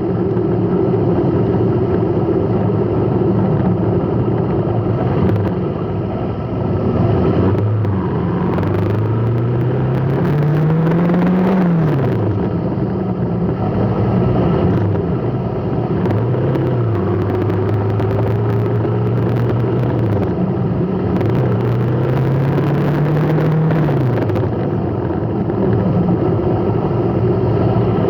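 A road vehicle's engine running in stop-and-go traffic. Its pitch climbs as it speeds up, then drops back, several times over, over a steady rumble of road noise.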